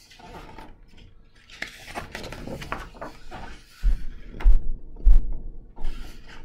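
A hardcover picture book being handled and its page turned: paper rustling and scraping, then three dull low thumps about two-thirds of the way through as the book is shifted.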